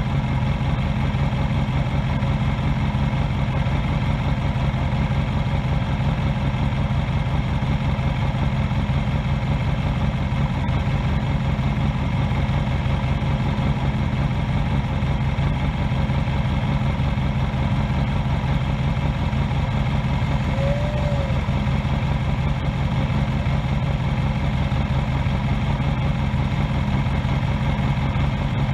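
Motorcycle engine idling steadily with an even low hum, heard close up from under the bike's tail.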